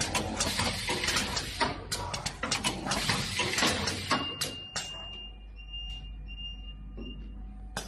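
A garment-making machine's mechanism clattering rapidly with dense clicks, over a steady low motor hum. The clatter stops about four and a half seconds in, leaving the hum.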